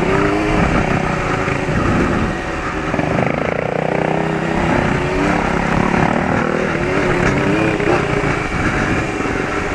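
Motorcycle engine running as the bike is ridden, its pitch rising and falling with the throttle, over steady riding noise.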